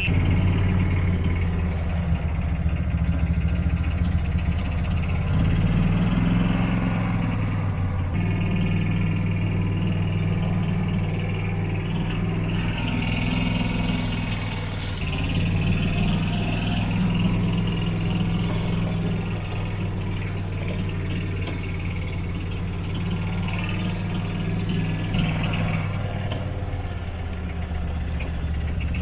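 Hot rod golf cart running as it drives along, a steady engine note that shifts up and down a few times with speed.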